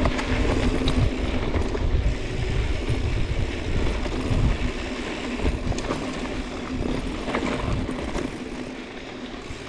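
Mountain bike rolling down a dirt trail: tyre rumble on the ground, knocks and rattles from the bike, and wind rushing over the helmet-camera microphone. The noise gets quieter over the last few seconds as the bike eases off.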